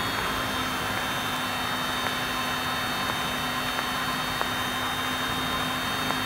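Steady drone of a Cessna's piston engine and propeller heard inside the cockpit, throttled back for a low-power descent on final approach.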